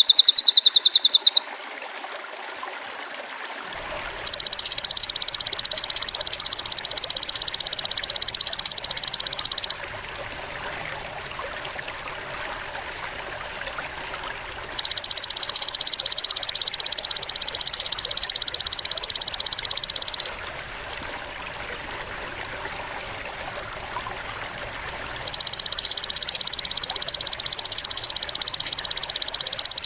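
Masteran recording of cililin and golden grasshopper (belalang emas) sounds: a high trill fades out about a second in, then three long, even, high-pitched buzzing trills of about five seconds each follow with pauses between them. A faint steady natural background of water and night sounds runs under the pauses.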